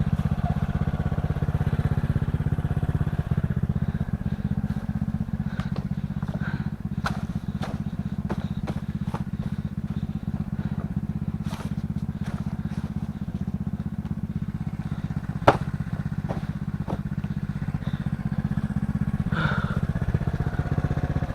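Honda Supra X 125 single-cylinder four-stroke engine of a homemade trail bike running steadily, with a few scattered clicks and one sharp knock about fifteen seconds in.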